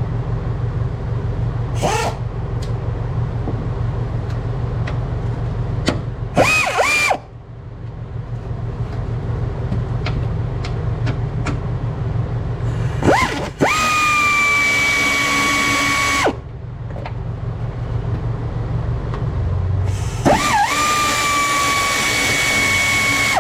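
Cordless power tool with a 13 mm socket spinning off the strut top-mount nuts: three bursts of motor whine, each rising in pitch and then holding steady, one short and two of about three seconds each. A steady low hum runs underneath.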